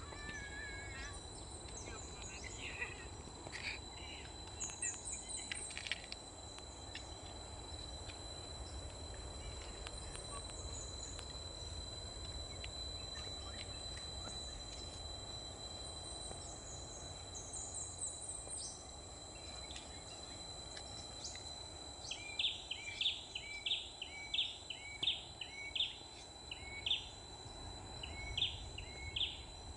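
Outdoor ambience of insects holding a steady high-pitched drone while birds call now and then. Near the end comes a run of about a dozen short, quick chirps.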